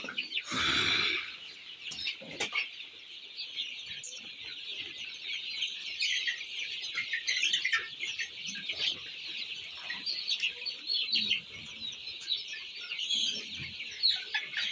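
A flock of month-old chickens peeping and clucking, many high chirps overlapping without a break. A short, louder rustling noise about half a second in.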